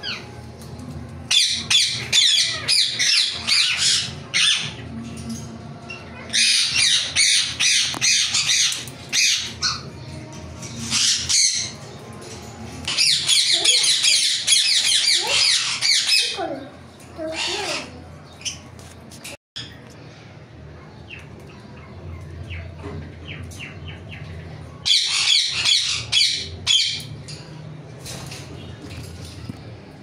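Ringneck parakeets screeching in repeated bouts of rapid, harsh, high-pitched calls, each bout lasting a few seconds. There are four bouts in the first half and one more near the end.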